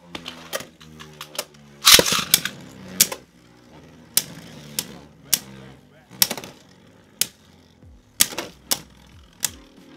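Two Beyblade Burst spinning tops, Strike Valtryek V3 and Luinor L3, whirring in a plastic stadium with a steady low hum. They clack together again and again, about one hit every half second to a second, the loudest flurry of hits about two seconds in.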